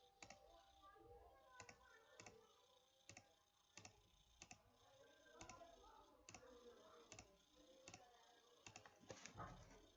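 Faint computer mouse clicks, about a dozen, irregularly spaced, over quiet room tone.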